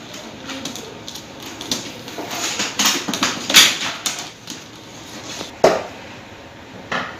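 Rustling and scattered sharp clicks and knocks of insulated electrical wires being handled and pulled through to a power socket, the loudest knock a little before the last second and a half.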